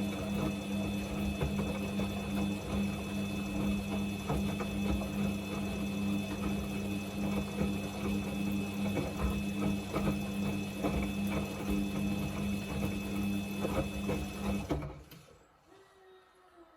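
Samsung washing machine running on its Quick 29 programme with a blanket load: a steady motor hum with scattered clicks and rattles, cutting off suddenly about fifteen seconds in.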